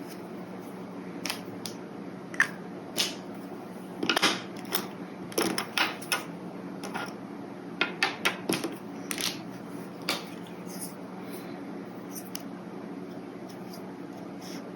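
Brush pen scratching and tapping on paper in short, irregular strokes, bunched in the middle and stopping a few seconds before the end, over a steady low hum.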